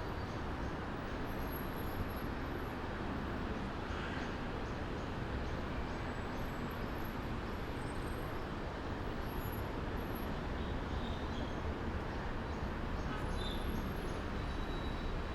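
Steady outdoor city background rumble of traffic, with faint high chirps now and then.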